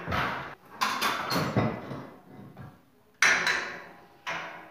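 Sharp metal knocks and clanks on a steel heating pipe as it is worked into place, about four blows with short ringing tails, the loudest about three seconds in.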